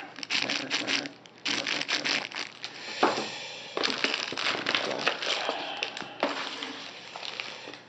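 Packaging crinkling and rustling in irregular bursts as kit parts are unpacked by hand, with one sharp click about three seconds in.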